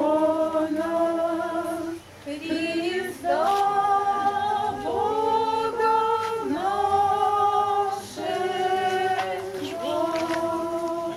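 An a cappella choir, with women's voices prominent, singing slow sustained chords in long held notes of a second or two each, with short breaks between phrases.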